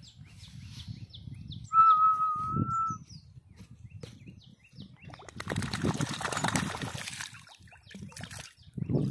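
A Doberman wading in shallow muddy water, the water sloshing and splashing around its legs for a couple of seconds past the middle. Small birds chirp, and about two seconds in a single steady whistled note, the loudest sound, lasts just over a second.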